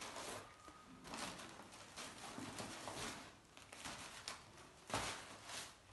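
Paper kites rustling and crackling as they are lifted and slid off a stack by hand, with a sharper papery flap just before five seconds in.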